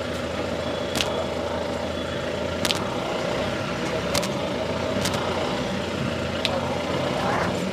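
Steady hum of engines and road traffic, with five sharp smacks at uneven intervals.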